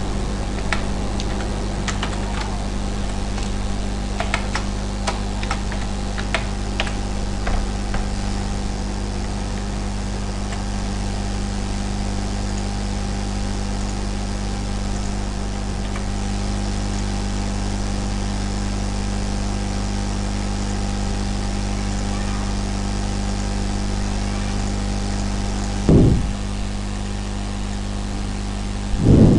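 Steady low electrical hum made of several evenly spaced tones, with light keyboard clicks scattered through the first eight seconds as text is typed. Two short low thumps come near the end.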